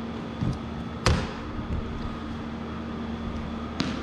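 A sharp thump about a second in and a smaller knock near the end, over a steady low hum.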